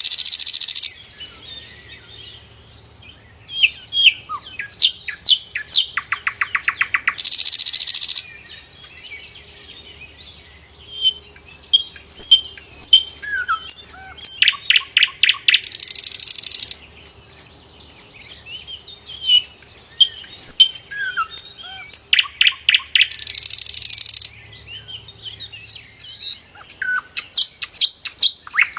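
Sikatan londo flycatcher singing: loud, fast rattling trills about a second long, repeated roughly every seven to eight seconds, with thin chirps and short sliding whistled notes between them.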